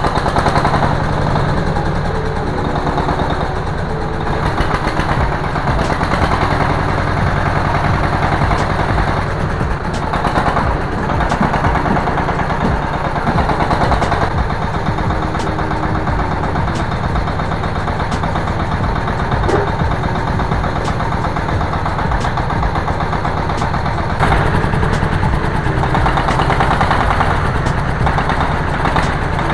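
Engine of a Matsumoto MCT-35 H1 crawler mini tractor running steadily with a rapid, even pulse as the machine is driven on its rubber tracks. It gets louder about three-quarters of the way through.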